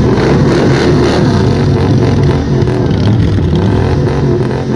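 Chevrolet van engine being revved with the van standing, its loud engine note rising and falling several times.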